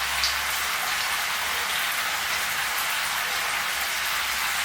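Shower running: a steady spray of water hissing evenly.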